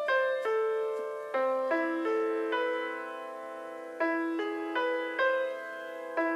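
Piano notes from a tablet piano app, tapped out one at a time as a slow melody, each note ringing and fading before the next.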